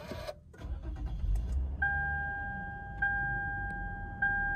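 Lexus IS250's 2.5-litre V6 starting by push button: a click, a brief crank as the engine catches, then a steady low idle. From about two seconds in, a dashboard warning chime sounds over it, restarting about once every 1.2 seconds.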